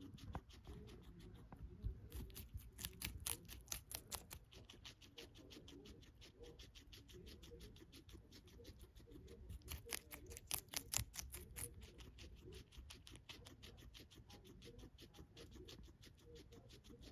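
Guinea pig chewing celery: a fast, even run of small wet crunches, about five a second, louder in two spells, a couple of seconds in and again about ten seconds in.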